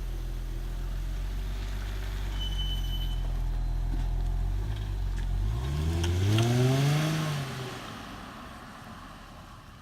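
2009 Infiniti M35's V6 engine running at a steady idle, then revving about five and a half seconds in: the pitch rises, peaks and falls away, and the sound fades toward the end.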